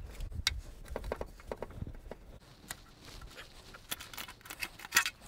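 Irregular light metallic clicks and short scrapes of a screwdriver working at the oil pan flange, prying the pan loose from the engine block's gasket seal. The clicks come thickest about four to five seconds in.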